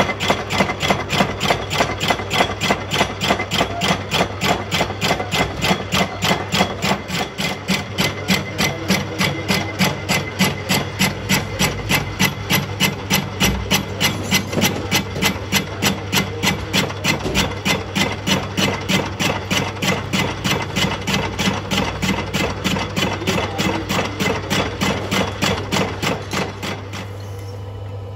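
Metal lathe spinning a bulky, off-centre cast hub in its chuck, knocking in a steady rhythm a few times a second over the machine's low hum. About a second before the end the knocking stops and only the hum is left.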